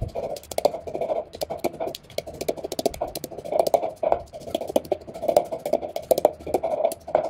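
Wooden pestle pounding garlic and chili in a wooden mortar: a rapid, steady run of dull wooden knocks as the cloves are mashed to a paste.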